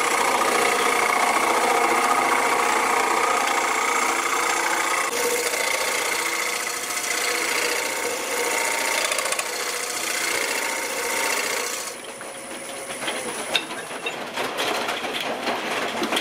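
Wood lathe running with a round-nose scraper cutting inside a square-blank bowl, a steady rasping scrape over the whir of the spinning blank as a bump in the bowl's inside is smoothed out. About twelve seconds in, the cutting stops and the sound drops, followed by a few light clicks as the lathe is stopped.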